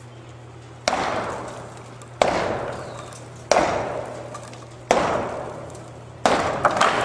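Five heavy blows struck against the base of a concrete stave silo, evenly spaced a little over a second apart, each ringing out and fading before the next.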